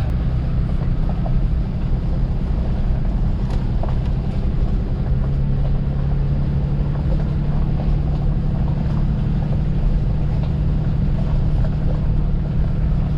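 Vehicle engine running steadily while driving slowly over a rough road, a low drone whose pitch firms up a little about five seconds in, with rumble and some wind on the microphone.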